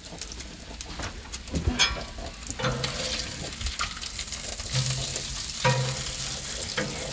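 Bacon sizzling on a Blackstone flat-top griddle, with a metal spatula scraping and clicking against the steel cooktop as cooked strips are lifted and piled aside.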